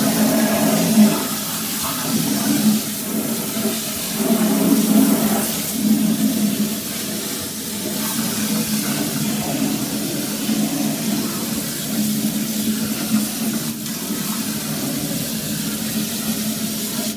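Water from a handheld shower spray hitting the inside of a plastic air-cooler tank and its blower wheel: a steady rushing splash that swells and eases a little as the spray moves.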